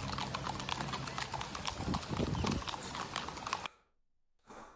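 Horse hooves clip-clopping in quick succession: the sound effect of a horse-drawn wagon. It cuts off suddenly about three and a half seconds in, and one short burst follows near the end.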